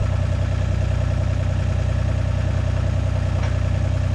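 Gehl turbo skid steer loader's engine running steadily with its forks raised, with a faint single clank about three and a half seconds in.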